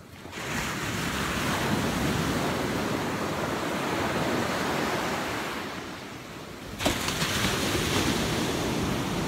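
Ocean surf breaking and washing up a sandy beach, with wind on the phone's microphone. The wash dips about two-thirds of the way through, then returns abruptly.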